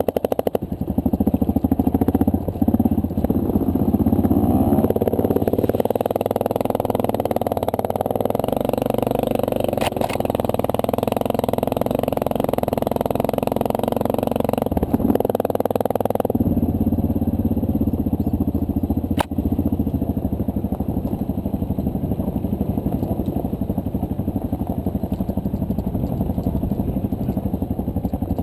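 2009 Honda CRF230L's air-cooled four-stroke single-cylinder engine running under way, heard from the rider's own bike. The engine note climbs a little way in, holds, then drops back abruptly a little past halfway.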